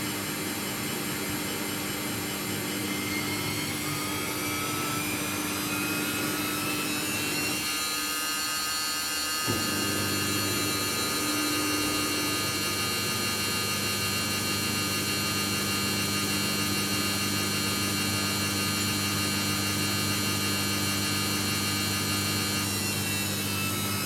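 Samsung EcoBubble front-load washing machine in its spin cycle, the drum motor whining as it speeds up. The whine rises in pitch over the first several seconds, holds steady at high speed, and starts climbing again near the end as the drum heads for its peak spin speed.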